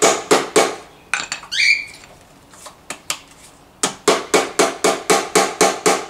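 Hammer tapping a fishing sinker into a mounting hole in the back of a plastic speaker, in quick runs of about four blows a second. The blows pause for about three seconds in the middle, where there are a few faint clicks and a brief rising squeak.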